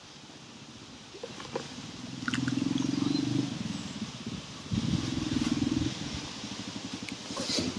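A low, rapidly pulsing engine rumble, like a small motor running nearby. It comes in about two seconds in and grows stronger in two spells, with a few light clicks over it.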